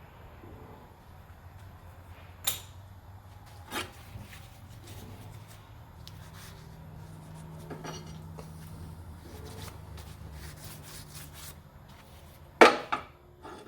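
Tools and metal parts being handled on a workbench: a few scattered knocks and clinks, the loudest pair near the end, over a low steady hum.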